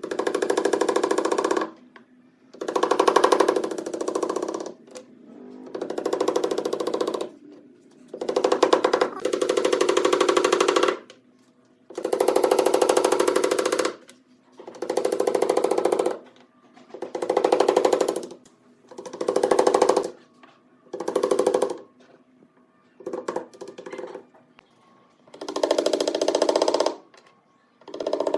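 A handheld power tool in a woodworking shop, switched on and off in about eleven short bursts of one to two seconds each.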